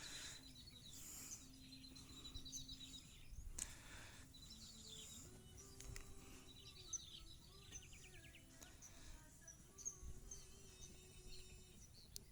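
Faint outdoor ambience: a high, buzzy trill repeats four times, each about a second long, with scattered short chirps from birds or insects.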